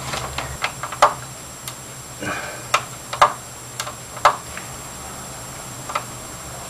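A string of irregular sharp plastic clicks and taps as fingers press and clip connectors into place on a plasma TV's replacement Y-board.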